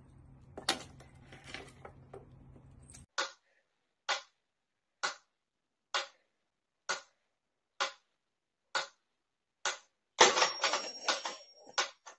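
Mechanical pyramid metronome ticking steadily, about one tick a second, eight ticks in a row. About ten seconds in, a louder jumble of knocks with a thin high ring takes over.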